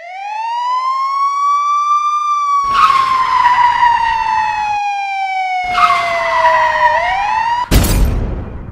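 Siren sound effect: one long wail that rises, then falls slowly and starts rising again. Two stretches of rushing noise lie over it, and a short, loud bang comes near the end.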